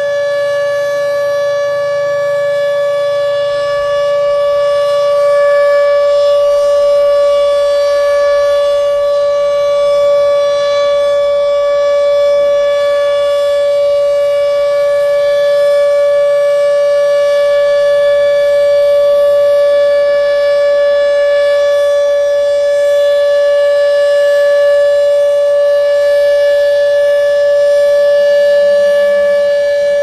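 H.O.R. Siro-Drone outdoor warning siren sounding the full alert signal of a tornado siren test: a loud, steady, unwavering tone with several overtones.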